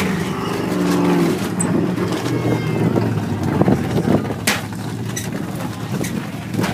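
Dirt-track stock car engines running around the oval. One car's engine note holds steady and strong for about the first second and a half, then blends into a rougher mix of engine noise with a few sharp clicks.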